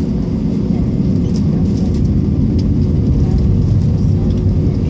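Jet airliner taxiing, heard inside the cabin: a steady low engine rumble with a constant hum over it.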